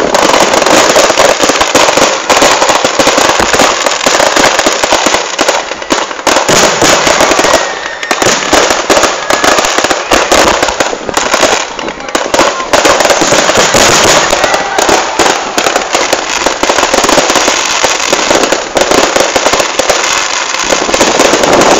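Fireworks display going off in a dense, continuous barrage of bangs and crackles, with only a couple of brief lulls.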